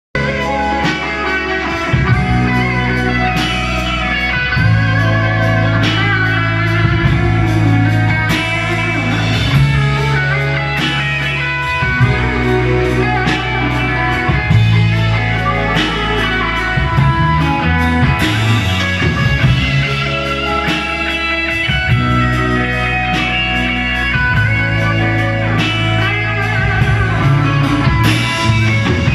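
Band playing rock music through an amplified sound system, with electric guitar over held low bass notes and a steady beat.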